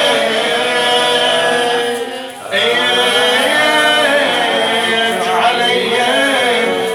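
Solo male voice chanting a Shia majlis elegy unaccompanied, drawing out a line in long, wavering melismatic notes, with a short break for breath about two and a half seconds in.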